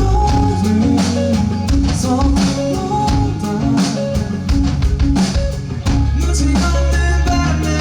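Live band music: guitars and bass over a drum kit keeping a steady beat, with some singing.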